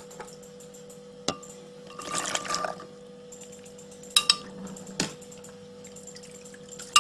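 Raw soaked chickpeas being tipped into a glass blender jar that holds a little of their liquid: a few sharp clinks against the glass and a brief wet rush about two seconds in.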